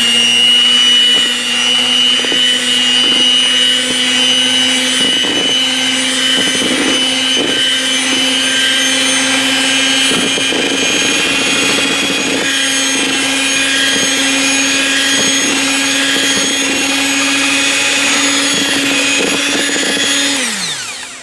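Electric hand mixer running at a steady speed, its beaters beating cake batter in a bowl, with occasional knocks as they hit the bowl. The motor winds down near the end.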